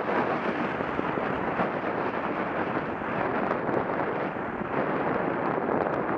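Steady rushing noise of skiing downhill on snow, picked up by a ContourROAM2 action camera: wind buffeting the camera's microphone, mixed with the hiss of skis sliding over snow.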